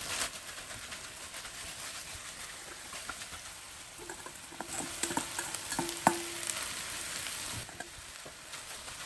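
Shredded cabbage and carrot sizzling in a hot wok with stir-fried chicken, while a spatula scrapes them out of a stainless steel bowl and stirs, with scattered scrapes and clicks. Near the middle the metal bowl rings briefly twice as the spatula knocks it.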